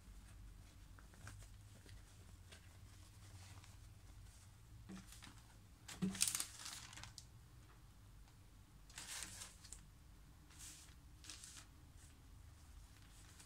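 Faint rustling and crinkling of plastic mask packets and disposable paper masks being handled, in a few short bursts: the loudest about six seconds in, then others around nine and eleven seconds.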